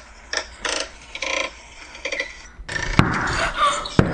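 Knocking on a door: two sharp knocks about a second apart in the second half, over a rustling noise, after a few short blips.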